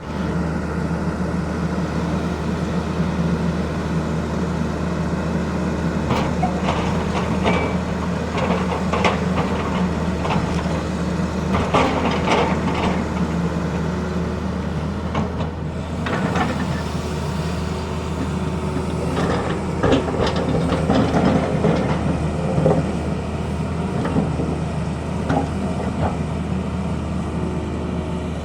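Tata Hitachi excavator's diesel engine running steadily, with bursts of clattering and knocking through the middle stretch.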